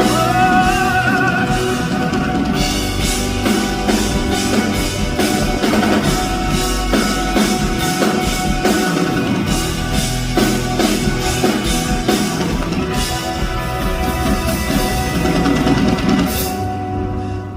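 Live band playing an instrumental passage of a pop-rock song, a drum kit keeping a steady beat under sustained guitar and keyboard chords. Near the end a cymbal rings out and the band drops to a much quieter texture.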